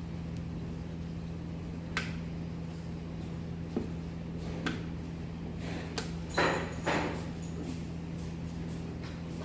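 Scattered knocks and short scrapes of shoe rack panels being handled and adjusted during assembly, the loudest two a little over halfway through, over a steady low hum.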